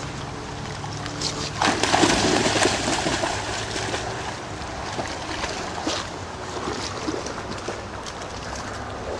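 A dog splashing and wading through shallow water, loudest for a second or so about two seconds in, then lighter, uneven sloshing as it moves about and climbs out.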